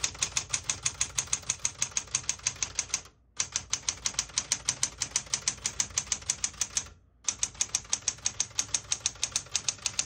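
Fast, steady typing on a 1973 Smith-Corona Galaxie Twelve manual portable typewriter: typebars strike the platen about five or six times a second, in three runs with two brief pauses.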